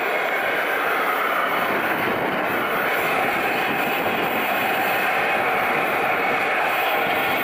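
Radio-controlled model jet's engine running at low, taxiing power: a steady rushing jet noise with no breaks.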